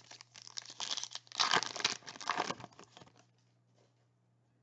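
Plastic crinkling and rustling as trading cards are handled and slid into a plastic card sleeve, loudest about a second and a half in and stopping after about three seconds.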